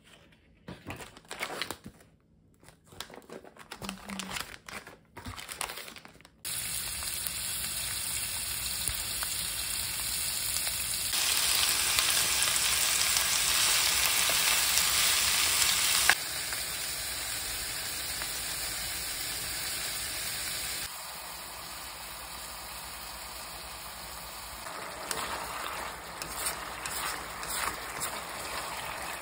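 Food frying and sizzling in a pan, a steady hiss that starts abruptly about six seconds in after a few faint handling clicks. It steps louder for several seconds and then quieter again, and turns more crackly near the end.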